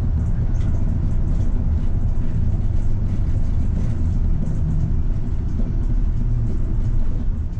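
City route bus running along the road, heard from inside near the front: a steady low rumble of engine and road noise.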